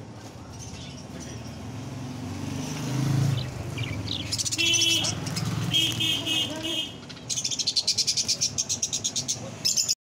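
Budgerigars in a cage chirping and chattering. Short chirps start about four seconds in, then a fast, rapid run of chirps in the last few seconds.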